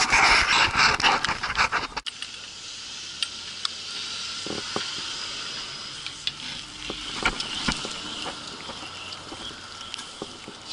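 Skis scraping loudly over packed snow as they touch down on a chairlift unloading ramp; the scraping stops suddenly about two seconds in. After that comes a steadier hiss of skis gliding over snow, with scattered light clicks and wind on the microphone.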